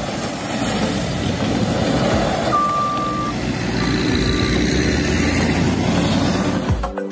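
JCB wheel loader's diesel engine running steadily. A high beeping alarm sounds about two and a half seconds in, one longer beep followed by a couple of shorter ones.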